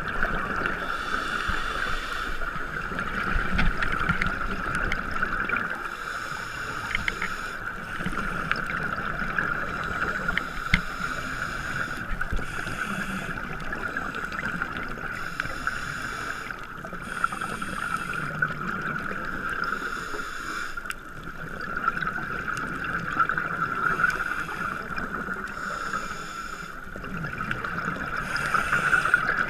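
Scuba diving underwater: regulator breathing, with a hiss of exhaled bubbles about every two to three seconds, over a steady high hum heard through the camera's waterproof housing.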